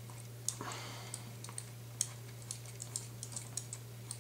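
Small, irregular metallic clicks, a few a second, of an Allen key being worked in the hex-head screws that hold a side saddle to a Remington 870 shotgun receiver, over a steady low hum.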